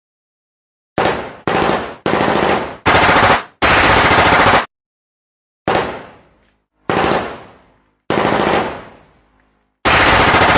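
Automatic gunfire in short bursts of rapid shots. Five bursts come back to back, then after a pause four more follow about a second apart, several of them trailing off in an echo.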